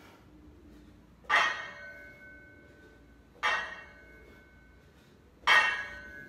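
Deadlift reps with a loaded barbell: three clanks as the plates touch down, about two seconds apart. Each clank is followed by a brief metallic ring.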